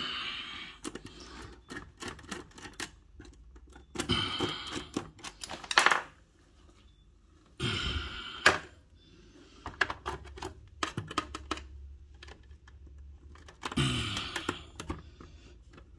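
Small irregular clicks and taps of a screwdriver and fingers working cable links into the terminal block of a dishwasher's electrical panel, with several louder handling rustles in between.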